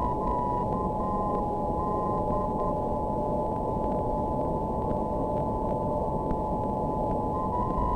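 Longwave aeronautical radio beacon heard through a radio receiver's audio: a steady whistle tone under static hiss. Its Morse code identifier, keyed on a slightly higher tone, sounds briefly at the start and starts again near the end.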